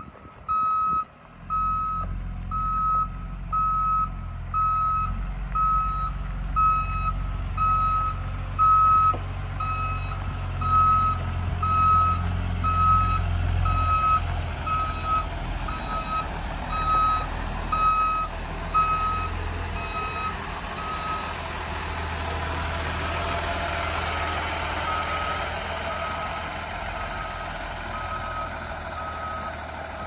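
A school bus back-up alarm beeps about once a second over the low running of the bus's Caterpillar 3126 six-cylinder diesel as it reverses. In the last third the beeps grow fainter and a broad rushing noise comes up.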